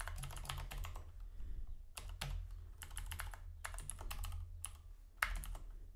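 Computer keyboard typing: runs of quick keystrokes broken by short pauses.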